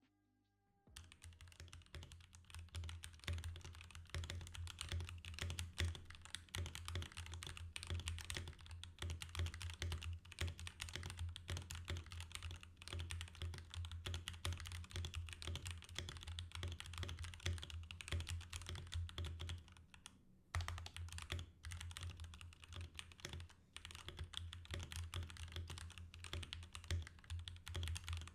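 Royal Kludge RK61 mechanical keyboard in stock, unmodified form, typed on steadily in a fast, continuous run of keystrokes. There is a short pause about twenty seconds in.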